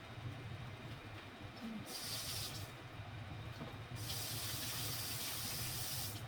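Two bursts of hissing that start and stop sharply, a short one about two seconds in and a longer one from about four seconds, over a steady low hum.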